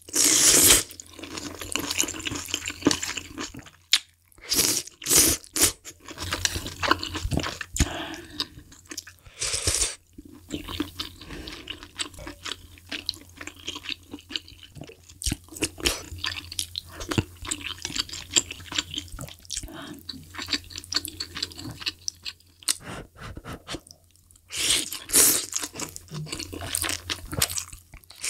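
Close-miked eating of malatang: several loud slurps of noodles and tofu skin from a spoon, between stretches of wet, crunchy chewing.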